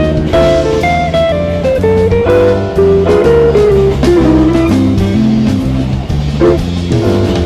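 Instrumental background music: a plucked guitar melody over a low, repeating bass line.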